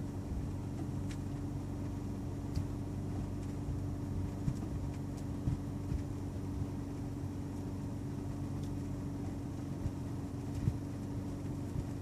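A steady low machine hum holding one constant tone, with a few faint soft ticks.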